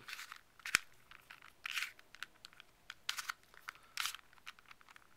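Plastic tower cube puzzle being turned by hand: its layers give irregular clicks and short scraping rasps, with one sharp click about three-quarters of a second in.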